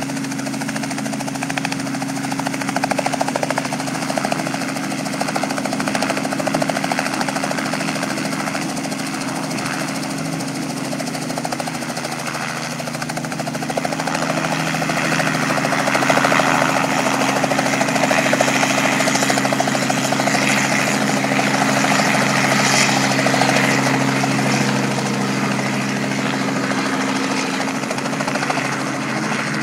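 Light helicopter taking off: the engine and turning rotor run steadily on the pad, then grow louder about halfway in as it lifts off and pulls away.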